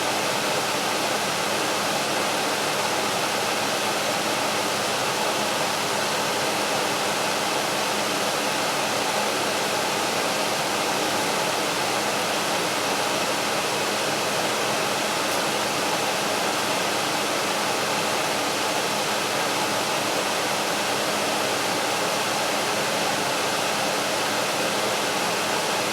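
Frigidaire air conditioner's fan running steadily, blowing air, with a faint steady hum underneath. It is only the fan: the unit has restarted after a simulated power failure and the compressor has not yet kicked on.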